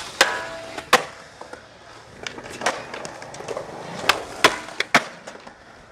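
A skateboard hitting a metal handrail and concrete: a string of sharp cracks and clacks from the board's tail, wheels and trucks. A few of the hits leave a short metallic ring from the rail.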